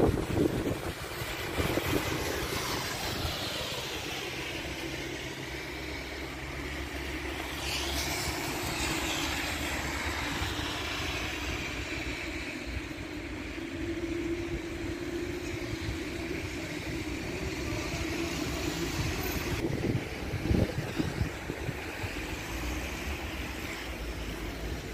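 Steady outdoor street noise in the rain: vehicle sound and rain on wet pavement, with a few faint knocks.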